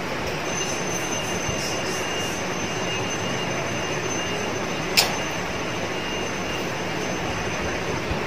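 Steady machine-like background noise, a constant rushing hiss with a faint high whine held on two steady pitches, and one sharp click about five seconds in.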